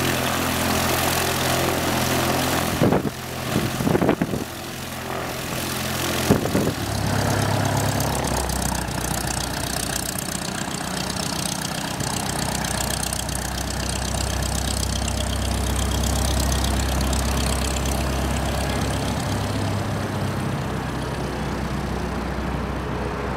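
Cessna 172 SP's four-cylinder Lycoming engine and propeller running steadily as the plane taxis and then makes its take-off roll. A few loud buffets of wind on the microphone come between about three and six seconds in.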